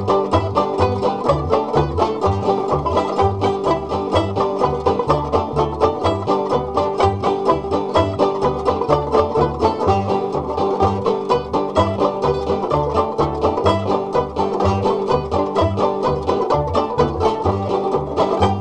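Background string-band music: a fast plucked melody over a steady bass beat.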